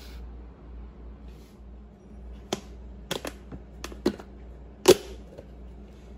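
Plastic lid of a yogurt tub clicking and snapping as fingers pry it loose around the rim: about six short, sharp clicks, scattered over two and a half seconds, the loudest near the end as the lid comes off.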